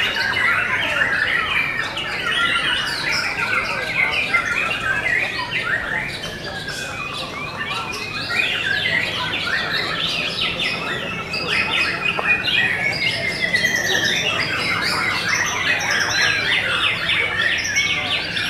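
White-rumped shamas singing in contest cages: a dense, unbroken stream of quick varied whistles, trills and harsh squawky notes from several birds at once, with a fast rattling trill about two-thirds of the way through.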